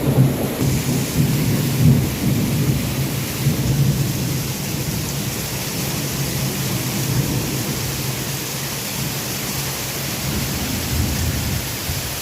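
Heavy rain falling steadily during a thunderstorm, with a low thunder rumble in the first few seconds that fades away.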